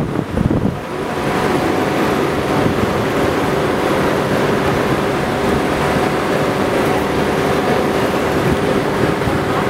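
Steady rushing city ambience, likely distant traffic and machinery, with a constant low hum running through it.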